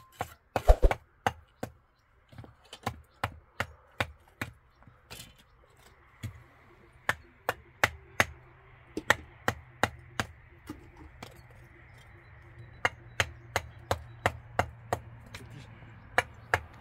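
A long series of sharp striking blows at an even pace, about two or three a second, pausing briefly twice, with a low steady hum underneath from about six seconds in.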